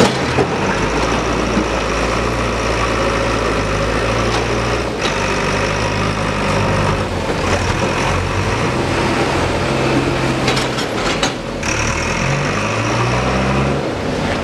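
Heavy engine of construction machinery running steadily, its pitch rising briefly near the end.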